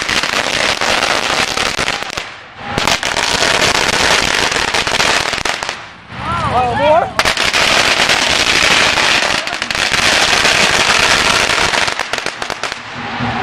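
Strings of firecrackers going off in a loud, dense, rapid crackle, breaking off briefly twice and starting again. A voice calls out during the second break.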